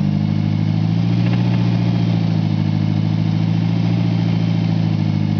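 1991 Mitsubishi Eclipse's four-cylinder engine running at a steady speed, with a recently developed noise that the owner wonders may be rod knock.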